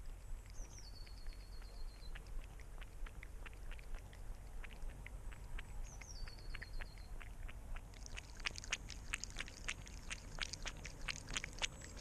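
A cat lapping water from a puddle right at the camera: a steady run of wet lapping clicks, about three or four a second, that gets louder and quicker about eight seconds in. Twice, a bird sings a short high phrase that drops in pitch and trails off in a falling trill.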